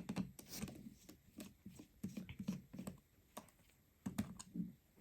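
Faint, irregular light clicks and taps of a tri-point precision screwdriver working the tiny screws out of an iPhone's internal metal plate.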